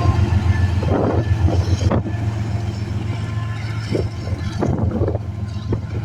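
Diesel freight locomotive running with a steady low drone, with irregular clanks and knocks over it.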